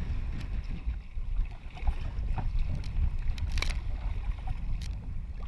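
Wind rumbling on the microphone over water splashing and sloshing around a sea kayak paddled through choppy waves, with a few short, sharp splashes from the paddle strokes.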